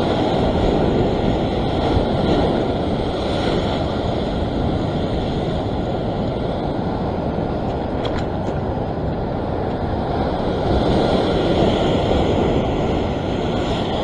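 Heavy ocean surf breaking and washing over coastal rock ledges, a continuous rush that swells a little near the end, with wind buffeting the microphone.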